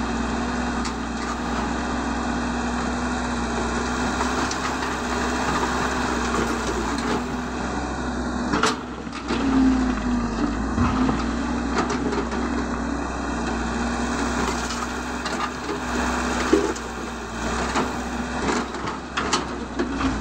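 Caterpillar 312 hydraulic excavator's diesel engine running steadily under load while its bucket digs rocky soil. A few sharp knocks of rock and bucket come through, one near the middle and several near the end.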